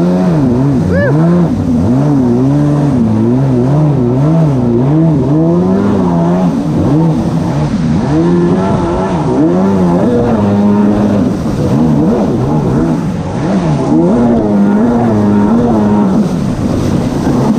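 Stand-up jet ski's engine running hard at speed, its pitch rising and falling every second or so, over the rush of water spray from the hull.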